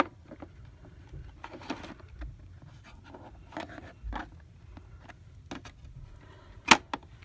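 Plastic dustbin of a robot vacuum being handled and fitted back into the vacuum: scattered light clicks and scrapes, with one sharp click near the end.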